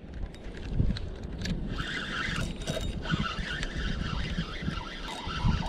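Spinning fishing reel being cranked, its gears whirring steadily as line is retrieved, starting about two seconds in. Wind buffets the microphone throughout.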